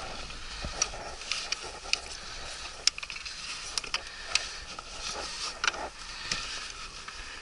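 Scattered sharp clicks and light knocks of hands working the clamp and mounting hardware of an outboard motor on a boat's transom, over a faint steady hiss.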